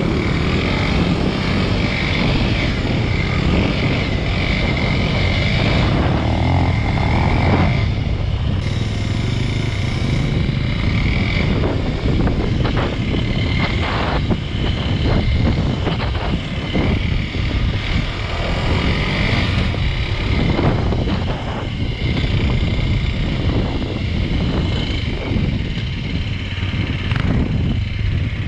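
Dual-sport motorcycle engine running under way over rough dirt and sand, mixed with wind noise on the microphone and repeated short knocks and rattles from the bike going over bumps.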